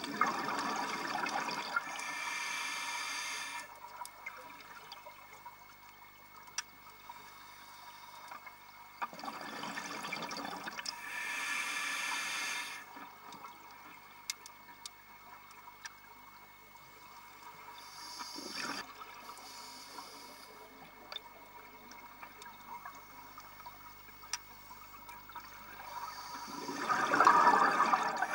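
Scuba diver breathing through a regulator underwater: three slow breaths, each a rush of exhaled bubbles followed by the hiss of an inhale, the last exhale the loudest.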